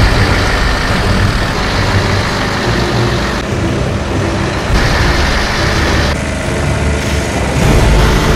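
Heavy truck's diesel engine running with a deep, steady rumble. The sound changes abruptly several times.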